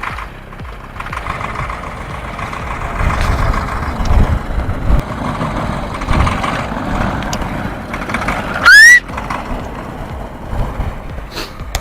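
Heavy truck engine running under load with a steady drone and low rumble. About three quarters of the way in, a short, very loud squeal rises sharply in pitch.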